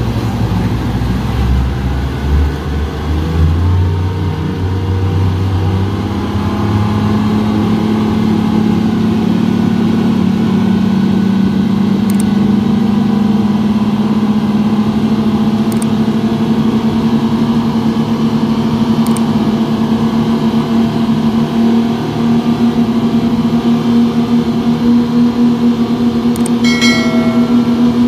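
Twin 250 hp Yamaha outboard engines on a wooden speedboat, rising in pitch as they speed up over the first six seconds or so, then running at a steady pitch.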